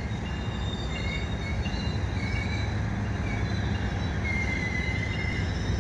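Steady low rumble of an ALP45DP dual-mode locomotive idling with its commuter train at a station stop. Faint thin high-pitched whines come and go above it.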